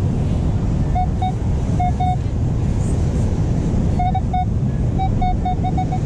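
Metal detector giving short beeps at one steady mid pitch, in clusters of two to four, as it passes over a coin target. Steady wind and surf noise runs underneath.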